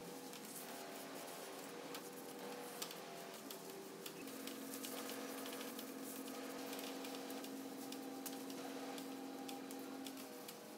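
Rag rubbing finish onto smooth mahogany by hand, a run of small scratchy ticks and soft squeaks, over a faint steady hum of held tones.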